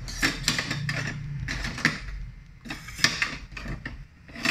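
Plates and bowls knocking and clinking in a plastic dish rack as someone rummages through it for a utensil: a string of irregular clatters.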